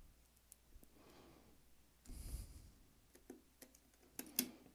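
Faint, sparse clicks from a small screwdriver and screw being fitted into a circuit board assembly, with soft handling noise between them; the clicks come closer together in the second half.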